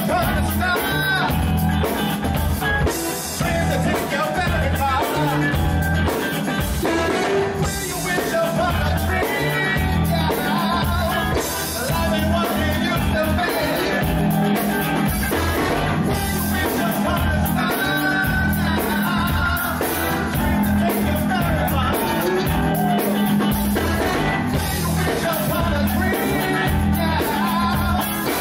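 Live soul band playing, with a repeating bass line, drum kit and singing.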